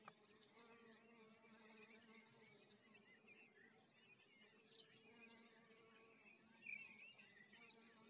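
Faint, steady buzzing of a honeybee in flight around flowers, a low even drone with a fainter higher overtone.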